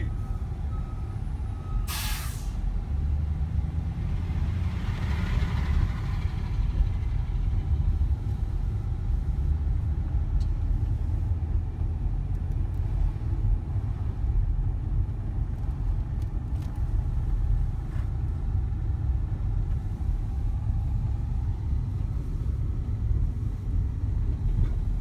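Low, steady engine and road rumble of a vehicle driving slowly, heard from inside its cab, with a short sharp hiss about two seconds in.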